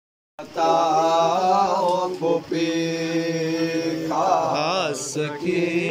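Young men chanting a noha, a Shia Muharram mourning lament in Urdu, unaccompanied, in long held, wavering notes. It starts about half a second in.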